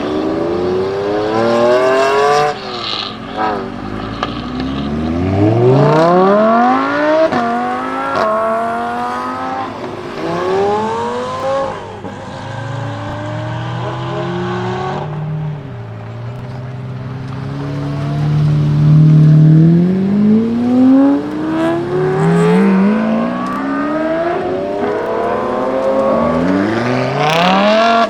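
Supercars accelerating hard away, their engine revs climbing steeply and dropping back at each upshift, several times over. Midway a lower engine note rises slowly before the revs climb sharply again near the end.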